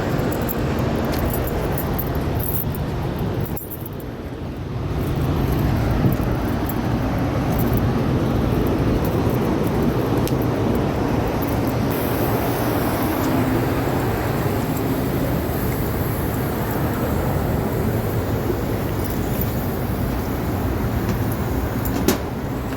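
Steady low hum and rushing noise of rooftop air-conditioning equipment running, dipping briefly about four seconds in, with a single sharp click near the end.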